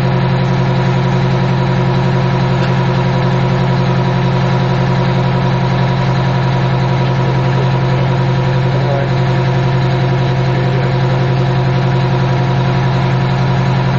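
Vickers Vanguard airliner's Rolls-Royce Tyne turboprop engines running steadily at a constant setting, with a strong droning hum and no change in pitch or level.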